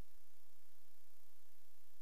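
Steady low electrical hum under a constant hiss, with no distinct events.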